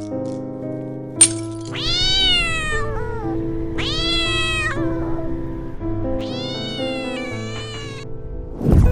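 A domestic cat meowing three times, each meow a long call that rises and then falls in pitch, the last one longer and wavering, over a background of slow sustained music. A sharp click comes just before the first meow, and a loud low whoosh comes near the end.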